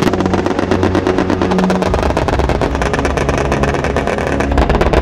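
Rapid automatic fire from the twin-barrelled autocannons of self-propelled anti-aircraft guns: a fast, continuous rattle of shots, under background music.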